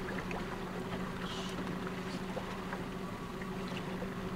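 Boat engine running at a steady pitch, a low even hum.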